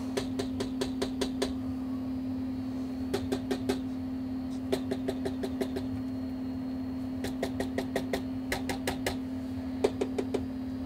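A running bench power supply with its cooling fans, giving a steady hum, with bunches of sharp, rapid clicks.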